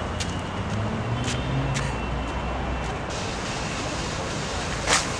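Steady background noise like distant road traffic, with a low hum during the first three seconds. A single short, loud burst of noise comes near the end.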